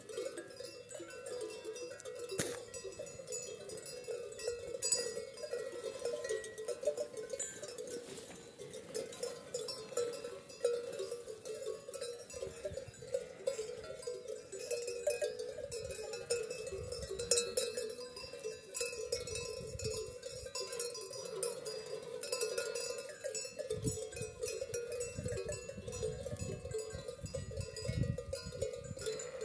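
Many bells worn by a grazing flock of sheep and goats, clanking and tinkling irregularly and without a break as the animals move and feed. There are some low rumbles toward the end.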